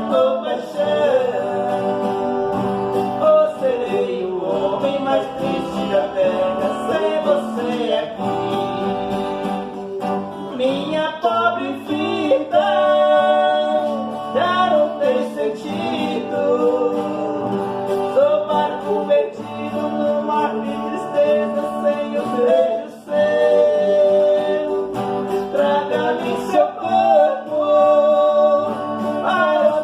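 A Brazilian country-style song: singing over plucked guitar accompaniment.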